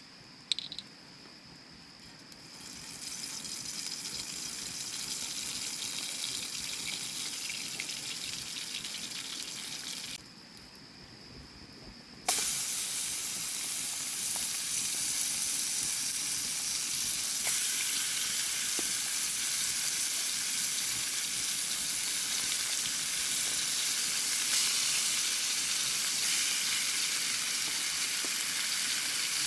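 Food frying in a pan, a steady high sizzle that starts a couple of seconds in, breaks off briefly around ten seconds and comes back louder. A thin, steady insect tone is heard in the quiet gaps, with a single click near the start.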